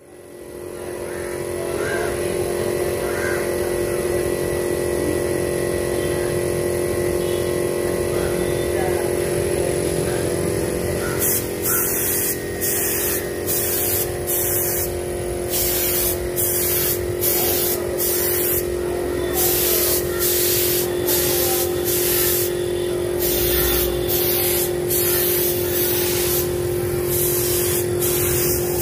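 Air compressor running with a steady hum while a compressed-air spray gun sprays wood polish. From about eleven seconds in, the gun hisses in short repeated bursts, roughly one a second, as the trigger is pulled and released. The sound fades in over the first two seconds.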